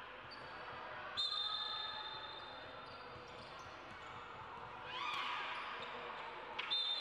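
Basketball game play on an indoor court: sneaker squeaks, and two sharp knocks, about a second in and near the end, each followed by a high ringing tone that fades slowly.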